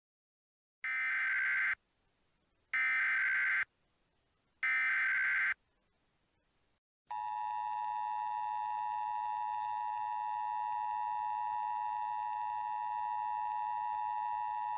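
Emergency Alert System tones. Three identical short data bursts of SAME header code come first, each about a second long and about a second apart. About seven seconds in, the steady two-tone EAS attention signal begins and holds. It heralds a winter storm watch alert.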